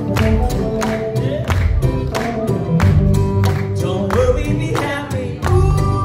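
Live band playing: keyboard and acoustic guitar over a steady beat, with some singing.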